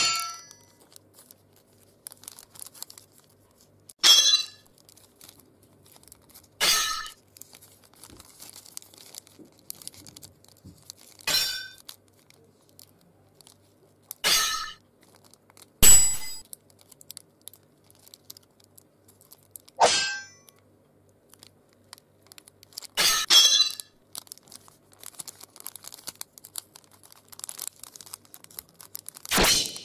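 Samurai-sword (katana) sound effects: about eight sharp metallic clangs, a few seconds apart, each ringing briefly.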